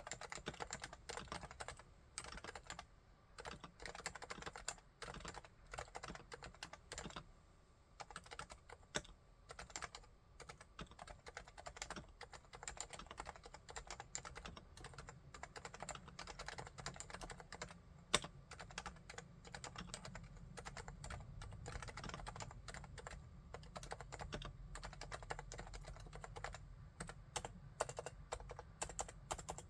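Continuous typing on a Realforce R2TLSA tenkeyless keyboard with silenced Topre electrostatic-capacitive switches set to 45 g actuation. The keystrokes are fairly quiet and rapid, with one noticeably louder stroke near the middle.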